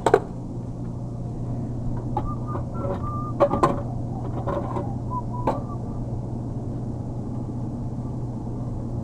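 Steady low hum with a sharp metallic click at the start, then a run of small clicks and brief clinks about two to five seconds in, as the soda vending machine is opened and handled.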